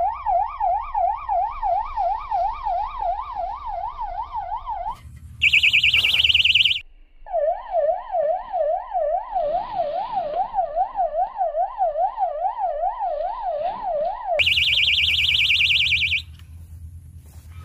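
Electronic siren-style alarm wailing up and down about three times a second, broken twice by a shorter, higher, faster warble: a fishing bite alarm signalling a fish taking the bait.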